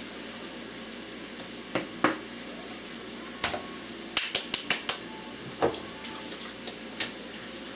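Scattered clinks and knocks of a kitchen utensil against a mixing bowl, with a quick run of about six taps near the middle, over a steady background hiss.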